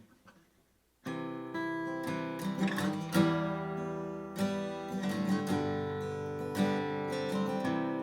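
Martin CEO-7 acoustic guitar being strummed: after a short hush, a chord rings out about a second in, followed by more strummed chords with accented strokes.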